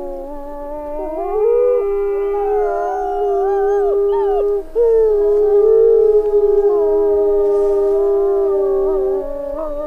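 Several wolves howling together, long held howls overlapping at different pitches with occasional rising and falling glides.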